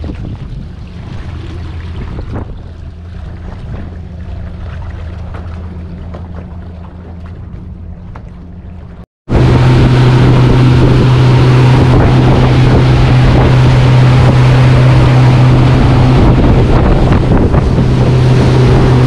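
Boat engine running quietly with a steady low hum under wind and water noise. After a cut about nine seconds in, the boat is under way: a much louder steady engine drone with heavy wind buffeting the microphone and rushing water.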